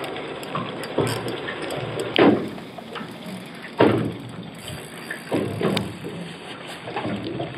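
Small waves slapping against the side of a fishing boat in irregular splashes, about one every second or so, the loudest about two and four seconds in, over a steady hiss.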